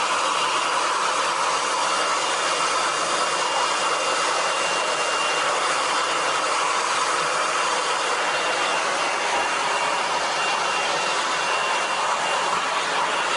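Handheld hair dryer running steadily: an even blowing rush with a faint high whine through the middle.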